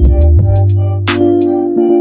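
Electronic background music: sustained synthesizer chords over a deep bass line, with sharp drum hits.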